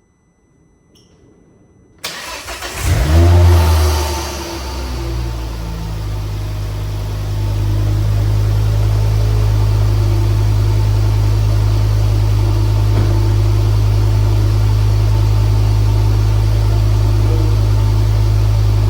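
Ford Focus ST225's 2.5-litre turbocharged five-cylinder engine starting about two seconds in, revs flaring briefly and falling back, then settling into a steady idle with no misfire.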